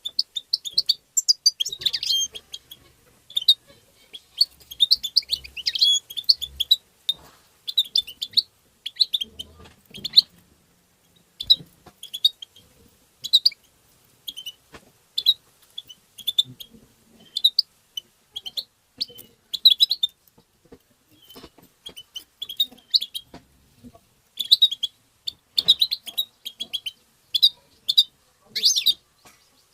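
European goldfinch twittering: short bursts of quick, high chirps repeated about once a second, with brief pauses between phrases.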